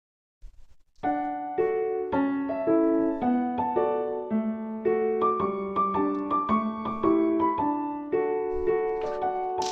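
Background music: a piano-like keyboard playing a light melody over chords, starting about a second in.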